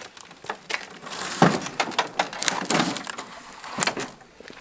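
Handling noises: a run of sharp clicks and knocks with scraping and rustling, busiest from about a second in to three seconds, as the mower and the cardboard and oil drain gear under it are moved about.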